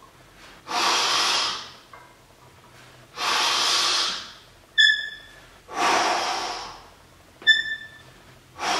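A man breathing hard and loud, worn out from a heavy set of barbell curls: four deep breaths each about a second long and a couple of seconds apart. Between them come two short, high ringing clinks.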